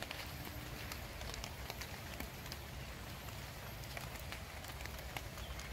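Light rain pattering: scattered drops ticking on leaves and grass over a steady hiss and a low rumble.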